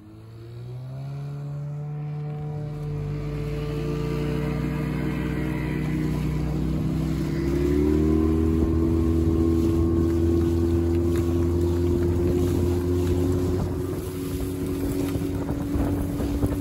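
Small outboard motor on an inflatable pontoon boat opening up to full throttle: its pitch rises over the first few seconds, climbs again about halfway, then holds steady at high revs. Rushing water and wind on the microphone come in near the end.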